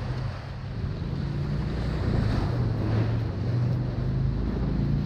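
Ocean surf washing, with wind buffeting the microphone; a wave swells up louder about two seconds in.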